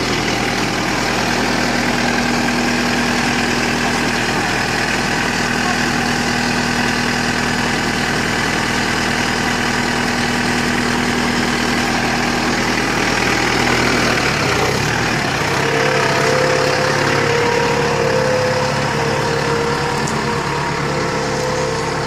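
LS R4047 compact tractor's 47-horsepower diesel engine running steadily, its note changing about two-thirds of the way through as the tractor gets under way.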